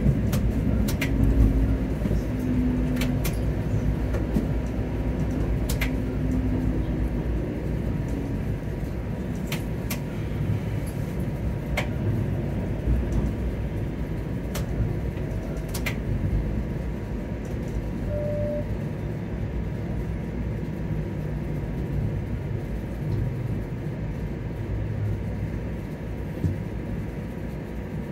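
Toronto TTC streetcar running on its rails, heard from inside the car: a steady low rumble with scattered sharp clicks and a low hum that fades after about eight seconds.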